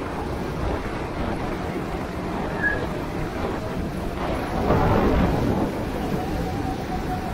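Go-kart engine running under heavy wind rumble on the microphone. The sound swells louder about four and a half seconds in, then a thin steady engine tone holds near the end.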